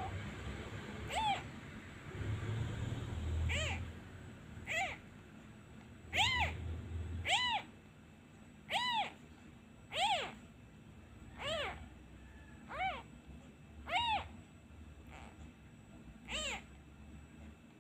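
Newborn kitten crying over and over, about a dozen short high mews that rise and fall in pitch, roughly one a second: the isolation cries of an abandoned kitten missing its mother. A low rumble sits under the first few cries.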